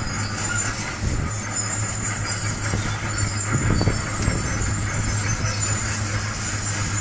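Heavy diesel construction machine running steadily with a constant low engine hum, while high-pitched metallic squeals come and go over the rumble.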